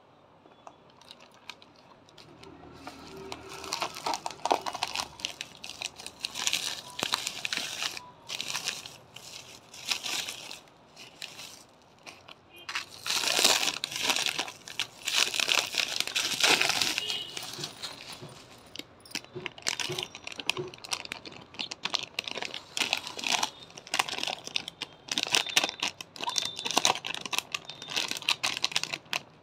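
Plastic packaging crinkling and rustling as hands unwrap a parcel, in irregular crackles. It starts about two seconds in and is loudest about halfway through.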